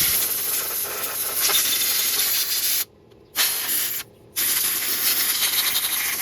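Compressed-air blow gun blasting in three long hissing bursts with short gaps, blowing dirt and old debris out of a Honda C70 motorcycle's open engine casing.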